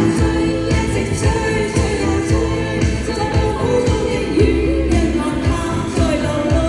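Asian pop song: a singer's voice carries the melody over instrumental backing with a strong bass line and a steady drum beat.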